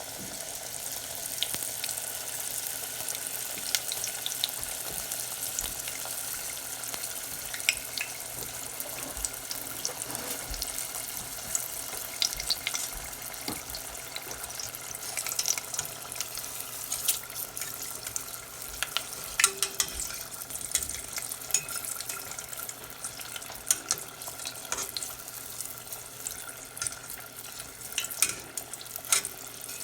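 Sweet potato spring rolls deep-frying in a pot of hot oil: a steady sizzling hiss with frequent scattered pops and crackles.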